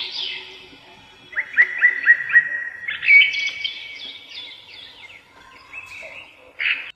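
Small songbirds chirping and singing: a run of quick rising notes about a second in, then a busier, more varied song.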